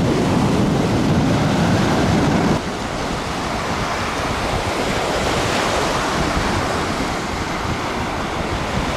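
Small sea waves breaking and washing up a sandy beach in a steady rushing surf. Wind rumbles on the microphone until about two and a half seconds in, then drops away suddenly, leaving the surf clearer.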